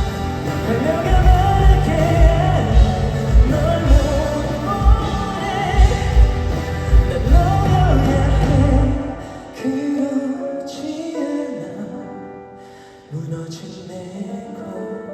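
Live band music closing a pop ballad: drums keep a steady beat under full accompaniment, then about nine seconds in the drums drop out and softer sustained chords carry on.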